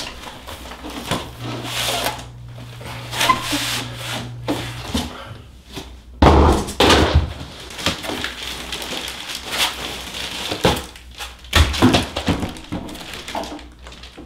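Packing foam and a plastic bag rubbing, scraping and crinkling as a large resin 3D printer is lifted out of its form-fitted foam base, with knocks throughout and two heavy thumps, about six and eleven and a half seconds in, as it is set down on a wooden table.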